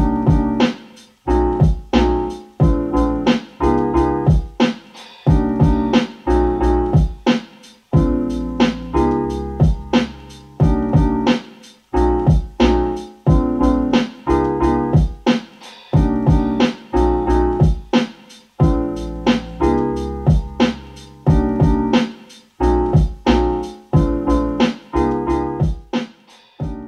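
Keyboard music, piano-like chords struck in a steady rhythm over deep bass, played back through a Yamaha HS7 studio monitor and picked up by a microphone in the room.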